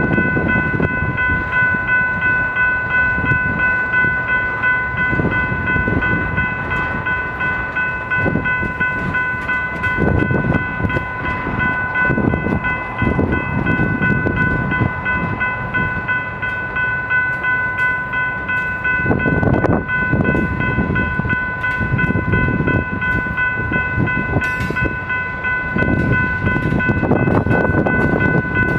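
Freight train of tank cars and covered hoppers rolling past close by, its wheels rumbling and clattering over the rails in uneven surges. A steady high-pitched ringing tone sits over the rumble.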